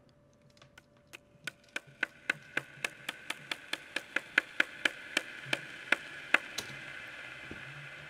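Field recording of a skateboard being tapped, played back through long reverb and delay that give it a spacey wash. The sharp clicky taps come about four a second, getting louder, and stop about two-thirds of the way through while the reverb wash lingers.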